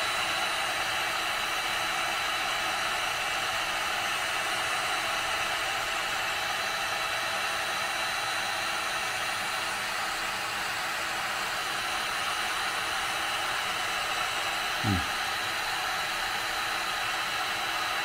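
1800-watt heat gun running on its full setting: a steady blowing rush with a thin high whine, as it heats a solder-seal heat shrink connector.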